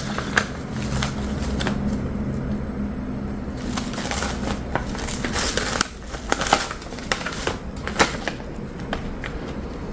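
Ham slices and bread being handled while a sandwich is assembled: scattered light clicks and knocks with some crinkling. A low steady hum runs under the first few seconds.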